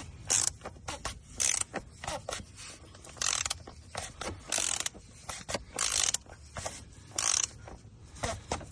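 A ratchet wrench clicking through repeated short strokes, irregularly spaced, as it tightens the car's oil filter housing cover back in place.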